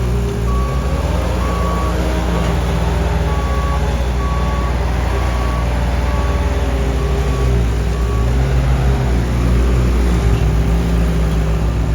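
Diesel engine of heavy paving equipment running steadily under load. A backup alarm beeps at an even pace, then stops about two-thirds of the way through.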